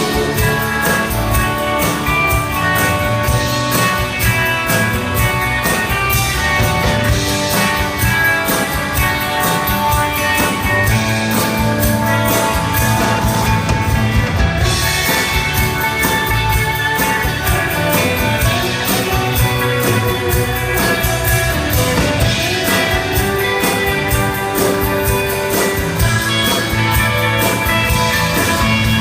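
Live rock band playing an instrumental passage, guitars over a steady drum kit beat.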